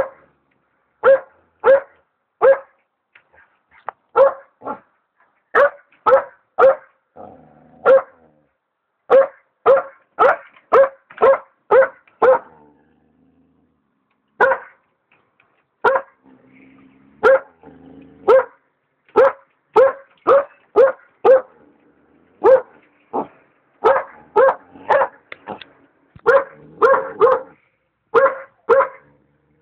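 Alaskan Malamute puppy barking over and over in short, sharp barks, in irregular runs with a brief pause about halfway through.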